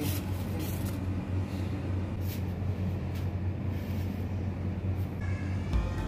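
Steady low background rumble with a few brief clicks; background music begins near the end.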